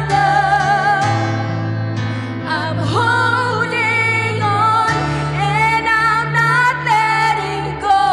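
Slow contemporary worship song: a lead voice sings a held, wavering melody over sustained chords. The deep bass note shifts about a second in and again about five seconds in.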